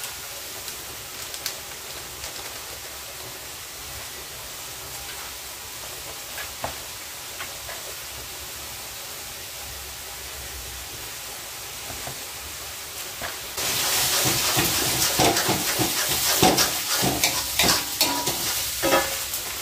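Blended shallot, garlic and dried-shrimp paste sizzling in oil in a wok, a steady hiss. About two-thirds of the way through the sizzle turns suddenly louder, with irregular scrapes and knocks of stirring.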